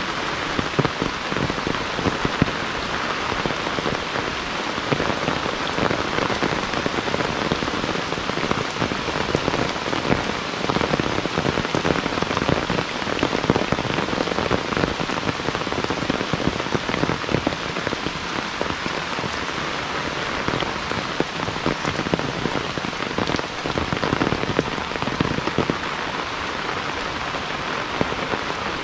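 Heavy rain falling steadily, with many close drops pattering over a dense rush of rainfall.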